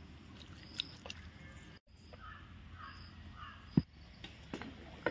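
Crows cawing a few short times around the middle, over a low steady background. A sharp knock near the end is the loudest sound.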